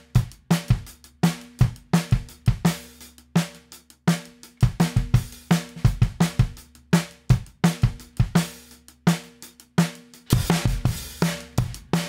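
Recorded drum kit playing a beat: kick, snare, hi-hat and cymbal hits in a repeating pattern. It gets busier and louder about ten seconds in.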